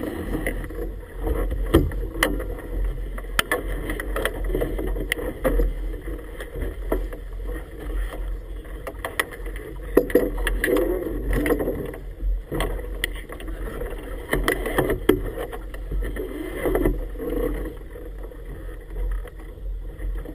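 Choppy river water slapping and splashing against an inflatable boat's tube, with sharp knocks every second or so, over a steady low rumble.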